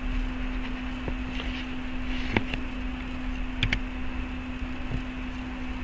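Steady electrical hum with low rumble and hiss from the recording, with two faint clicks in the middle.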